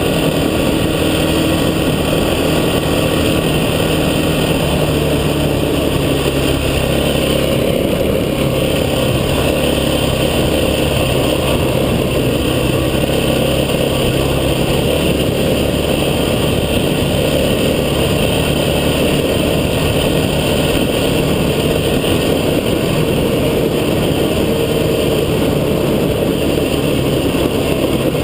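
Off-road vehicle's engine running steadily as it drives, its pitch shifting a little now and then.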